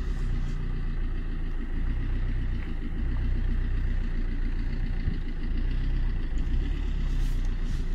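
Opel car's engine running steadily, heard from inside the cabin: a low, even rumble.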